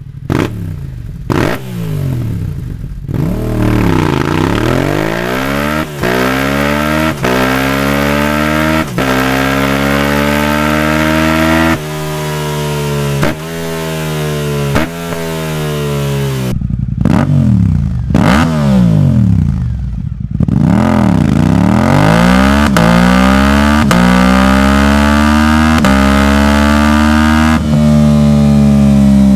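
Sport motorcycle exhaust, the engine's pitch rising and falling again and again as it revs and accelerates. The sound breaks off and changes abruptly several times.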